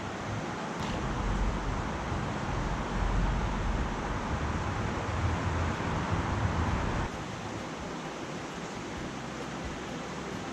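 Rushing water of a small mountain creek, a steady hiss. Wind buffets the microphone with a low rumble until it cuts off suddenly about seven seconds in.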